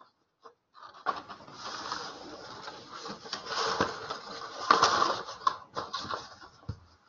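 Close scratching and rustling with many small clicks, starting about a second in, swelling around the middle and ending with a low thump near the end.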